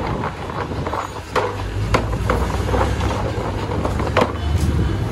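Raw potato strips coated in flour being tossed in a plastic basin, rustling with scattered sharp knocks against the sides. A motor vehicle engine starts a steady low idle about a second and a half in.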